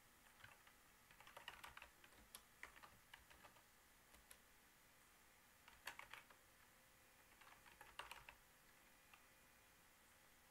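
Faint typing on a computer keyboard: short runs of keystrokes with pauses between them.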